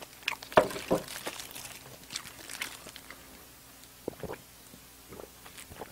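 Close-miked eating sounds: scattered mouth clicks and smacks of chewing, with a sip and swallow from a cup about four seconds in.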